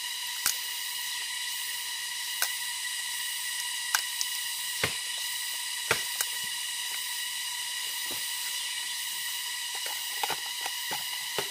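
Bamboo shoot being peeled by hand: the tough outer sheaths crack and tear away in short sharp snaps every second or so. A steady high-pitched drone runs underneath.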